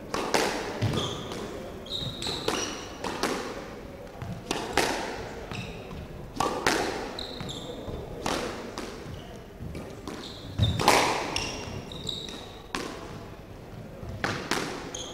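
Squash ball being hit back and forth: sharp racket and wall impacts every second or so, each echoing around the enclosed court, with short high squeaks of court shoes on the wooden floor in between.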